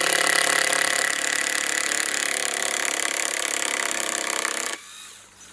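Power drill-driver running steadily with a whine, backing a screw out of a decking board, then stopping shortly before the end.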